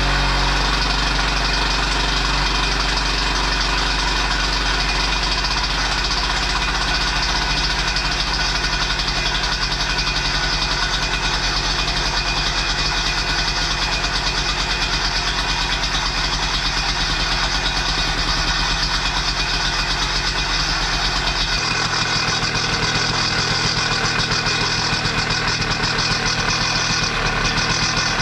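Neuson BS60Y trench rammer's two-stroke single-cylinder engine running steadily on its freshly rebuilt Bing 33 carburettor. Its note shifts about 21 seconds in.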